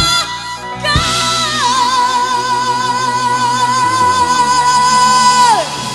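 Live band ending a gospel spiritual: a woman's voice holds one long final note with vibrato over a sustained chord, then slides down and stops near the end.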